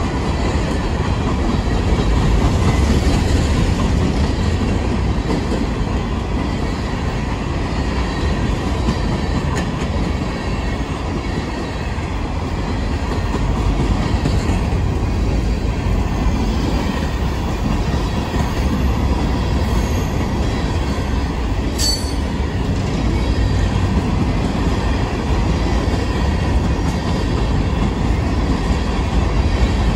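Freight train of open-top hopper cars rolling past close by: a steady loud rumble and clatter of steel wheels on the rails. A brief sharp high squeak cuts through about two-thirds of the way through.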